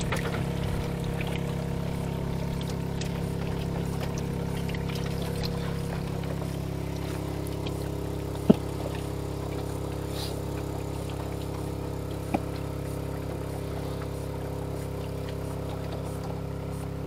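Small boat's inboard long-tail engine idling with a steady hum. A sharp knock comes about halfway through, and another a few seconds later.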